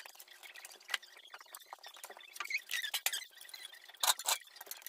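Scratchy rustling and light clicks of household items being handled and wiped while cleaning a shelf, with a louder clatter about four seconds in.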